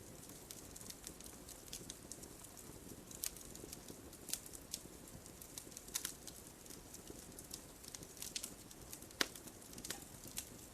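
Wood fire in a fireplace crackling: burning logs pop and snap at irregular moments over a soft steady hiss, one pop louder than the rest near the end.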